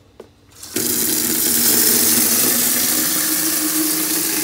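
Outdoor garden tap turned on about a second in. Its stream of water pours steadily into a shallow metal basin that already holds some water, filling it.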